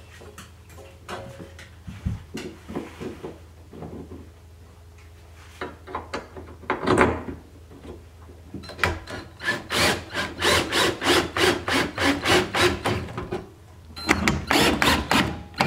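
Drill with a socket bit driving long lag bolts through a steel barn-door rail into a pine wall. The wood rasps under the bolt, and there is a loud knock about halfway through. Then comes a run of rapid clicks, about four or five a second, followed by a shorter run near the end.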